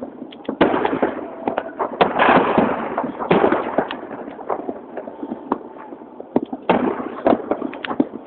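New Year fireworks and firecrackers going off: a rapid, irregular string of sharp bangs and crackling, with louder clusters about half a second, two, three and a half and six and a half seconds in.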